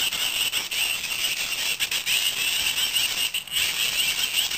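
Hand-crank dynamo torch being cranked: its small gears and generator make a fast, steady rattling whir while the LED stays lit, dipping briefly about three and a half seconds in.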